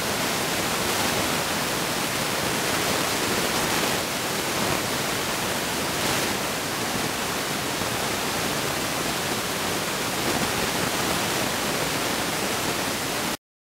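Steady, even hiss with no bird calls in it, cutting off abruptly just before the end.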